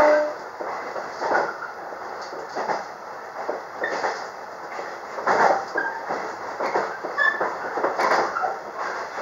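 JR 115-series electric train running, heard from inside the car: a steady run of irregular clacks as the wheels pass over rail joints. A horn tone cuts off just after the start.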